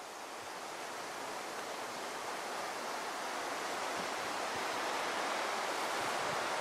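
Wind rushing through the crowns of conifer trees, a steady hiss that slowly grows louder.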